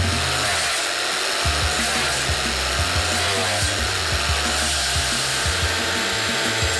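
A machine grinding through wood: a dense, steady grinding noise, with the machine's pitch wavering as it takes the load. Background music plays underneath.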